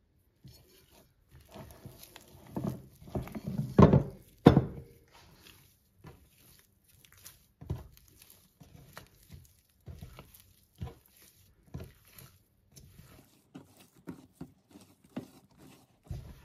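Hands kneading soft, sticky brioche dough with butter being worked in: irregular squelching and slapping, with two loud thumps about four seconds in, then softer scattered thuds as the dough is kneaded on a wooden board.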